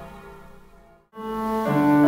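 Church bells ringing fade out, with a brief gap of silence about a second in. Soft piano music then starts and grows louder.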